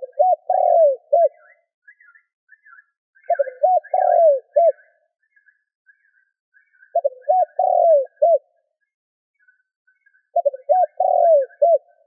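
Spotted dove cooing: four phrases about three and a half seconds apart, each a quick run of notes ending in arching coos. Faint scattered higher notes run behind.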